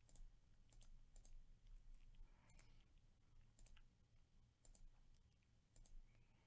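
Faint computer mouse clicks, roughly one every second, over near-silent room tone.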